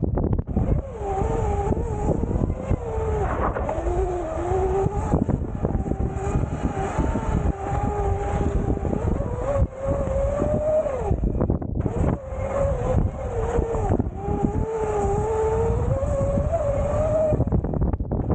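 Modified Sur-Ron L1e electric dirt bike riding hard on a dirt track: the motor's whine rises and falls in pitch with the throttle, over a steady rumble of wind and tyres. The whine drops out briefly about two-thirds of the way through.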